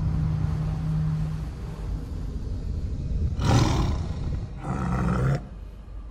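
A low steady drone, then two loud, rough roars on the soundtrack, the first about three and a half seconds in and the second about a second later, cutting off shortly before the end.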